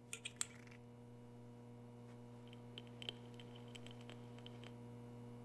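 Faint steady electrical hum, with a few soft clicks just after the start and scattered faint ticks in the second half.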